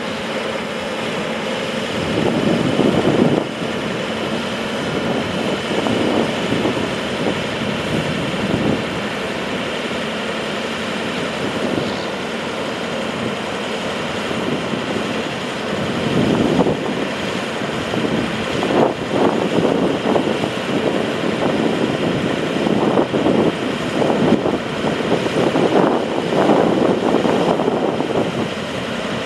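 Diesel engine of an International 4200 crane truck running steadily, driving the hydraulic crane as the boom is raised and swung. Wind gusts on the microphone.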